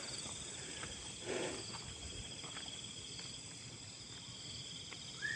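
Insects trilling steadily in a night chorus. A brief rustling noise comes about a second in, and a short rising chirp near the end.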